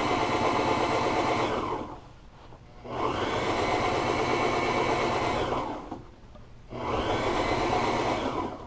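Upholstery sewing machine stitching vinyl backed with quarter-inch scrim foam along a pleat line. It runs in three spurts of two to three seconds each, stopping briefly about two seconds in and again near six seconds, and stops near the end.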